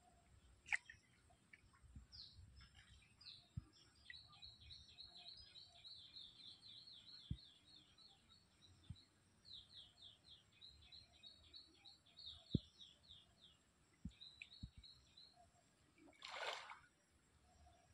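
A small bird singing long, rapid runs of short, high, down-slurred notes. A few faint sharp knocks and a brief noisy burst near the end.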